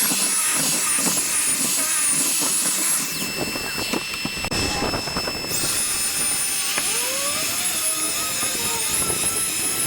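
Power sander running with a high whine; the whine cuts out about three seconds in, with some knocking and clatter, and comes back about two and a half seconds later.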